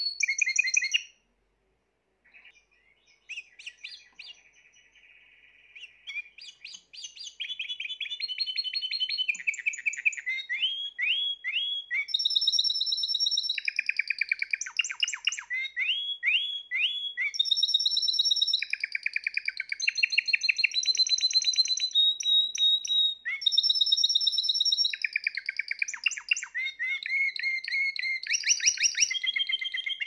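Spanish Timbrado canary singing: the song breaks off about a second in, starts again quietly a second later, and from about seven seconds in runs loud and unbroken as phrases of rapid trills of repeated notes.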